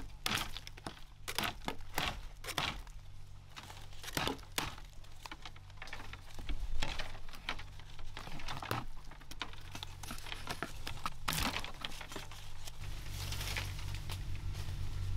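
Machete chopping at bamboo stems: irregular sharp hits a second or two apart, with crackling and rustling of dry bamboo leaves and sheaths.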